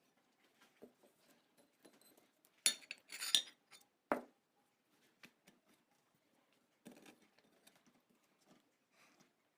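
Kitchenware clinking and clattering in a few short bursts, loudest about three seconds in, with a single knock just after.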